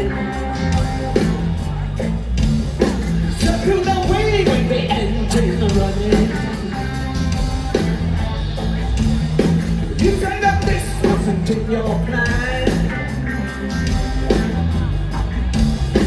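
A rock band playing with a woman singing over a steady, repeating bass line.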